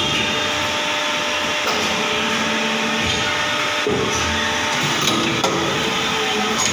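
Plastic injection moulding machine running through a moulding cycle with a steady mechanical drone. The sound shifts about four seconds in, and a sharp clack comes a little later as the mould opens.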